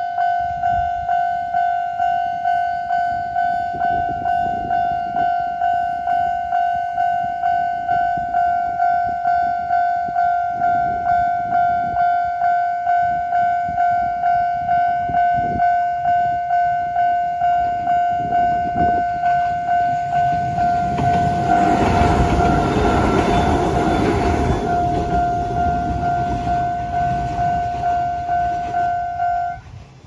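Japanese level-crossing electronic warning bell ringing steadily at about two strokes a second while a Kōnan Railway train runs over the crossing, its rumble on the rails swelling to the loudest sound about two-thirds of the way through and drowning the bell. The bell cuts off suddenly near the end once the train has cleared.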